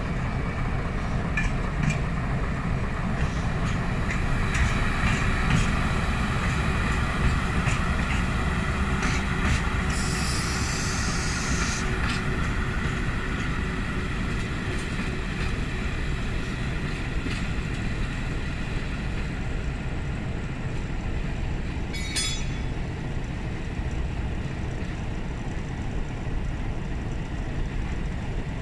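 Diesel locomotive hauling a short work train past, with a steady low rumble and wheels clicking over the rail joints, slowly fading as the train moves away. A hiss lasts about two seconds around the middle, and a brief high wheel squeal comes about two-thirds of the way in.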